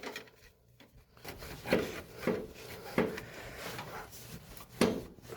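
A few short knocks and scraping rubs as the engine is rocked and worked onto the transmission's dowel pins, the block shifting against the bell housing. The knocks are spaced unevenly, about half a second to two seconds apart.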